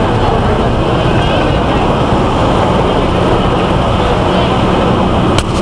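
Loud, steady road-traffic noise, with a short dip and a few clicks near the end.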